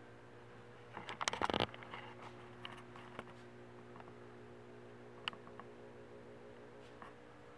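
Steady low electrical hum of a quiet room, with a short clatter of knocks and rattles about a second in and a few single clicks after it.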